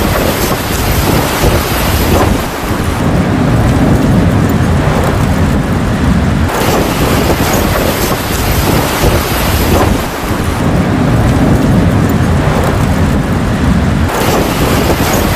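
Thunderstorm noise: dense, steady rain and wind with a continuous low rumble.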